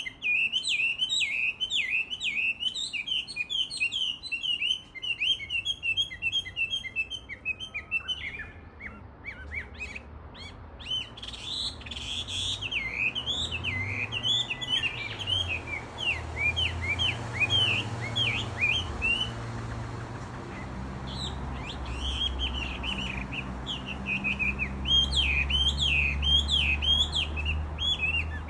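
Chinese hwamei (gabichō) singing a loud, rapid, varied run of whistled phrases, with a thinner stretch about a third of the way in, and a Japanese bush warbler singing along. A low rumble sits underneath from about halfway.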